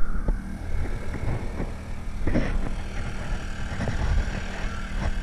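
A small gasoline engine on the boat running steadily at constant speed, a low even hum.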